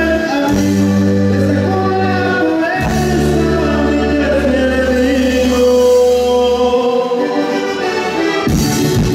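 Dance-band music with singing over long held low chords; about eight seconds in, a drum beat and guitar come in.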